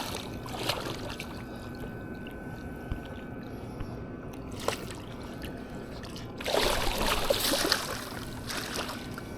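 Water sloshing and splashing against a kayak, with a louder spell of splashing about six and a half seconds in that lasts a second or two.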